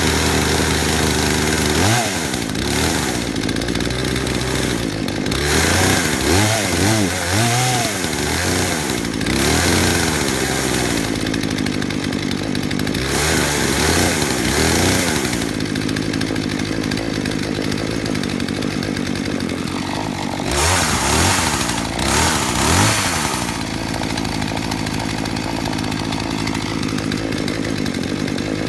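McCulloch CS420T two-stroke chainsaw running just after a cold start, with the choke pushed in halfway. It is revved up and down several times, then settles to a steady run for the last few seconds.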